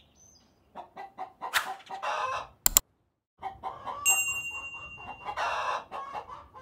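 Chickens clucking and squawking in alarm, with flurries of flapping wings, as a hen and rooster fight off a hawk. A little before halfway come two sharp clicks, and at about the four-second mark a bell-like ding from a subscribe-button sound effect.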